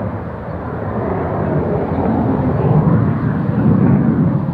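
Military jet engine noise from a formation flypast that includes an F-35A and an A-10C: a steady deep roar that swells to its loudest about three to four seconds in.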